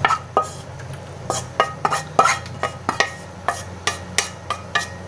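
Spatula knocking and scraping against a wok as cooked food is pushed out onto a plate: about fifteen sharp, irregular taps, each with a short ring.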